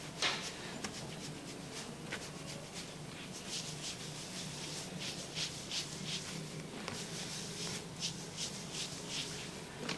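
Fingers rubbing and massaging a person's scalp through damp hair: soft, close rustling strokes, with a quick one just after the start and a run of about two to three a second through the second half.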